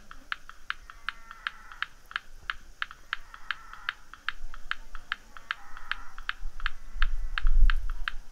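Steady, evenly spaced sharp clicks, about three or four a second, with faint short higher tones in between. A low rumble swells near the end.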